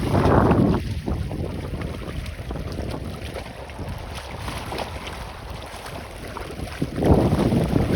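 Wind buffeting the microphone, a heavy rumble that is strong in the first second, drops back, and gusts up again near the end.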